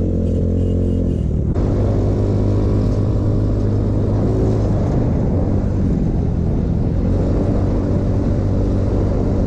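Motorcycle engine running steadily under way, with wind noise on the microphone. About a second and a half in, the sound changes abruptly: the clear engine note turns into a rougher mix of engine and wind rush.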